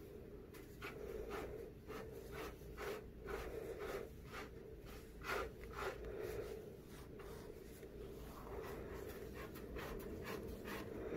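A hand patting and stroking a cat's fur, soft pats coming irregularly about twice a second, with a lull in the middle before they pick up again.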